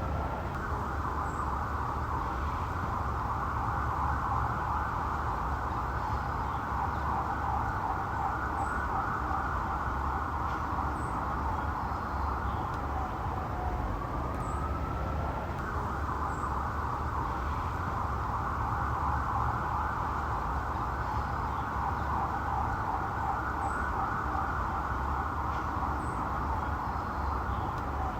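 Police car siren running in a fast warble. About halfway through it breaks into a slow rising wind-up lasting a second or so, then goes back to the fast warble. A steady low engine or road rumble runs underneath.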